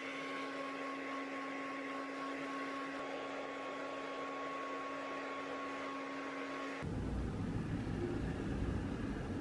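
Handheld hair dryer running: a steady rush of air with a steady whine from the motor. About seven seconds in the whine stops and the noise turns lower and fuller.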